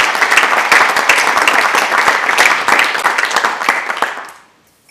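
Audience applauding: many hands clapping together, fading out about four seconds in.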